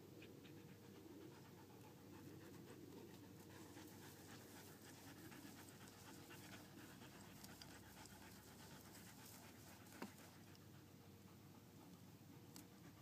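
Faint dog panting, with scattered light clicks and one sharper click about ten seconds in.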